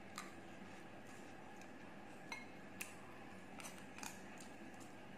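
White plastic spoon and fork scraping and clicking against a clear bowl of rice as the rice is mixed: about half a dozen short, light clicks, a few close together in the second half.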